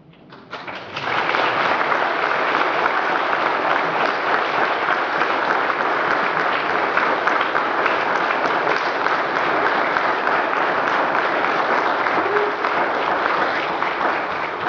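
Audience clapping, starting about a second in and holding steady.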